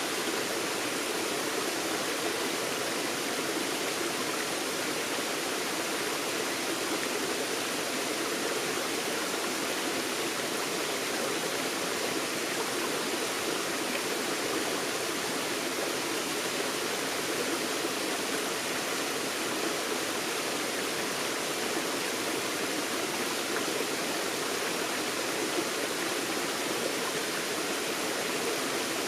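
Forest stream running over rocks: a steady, even rush of water.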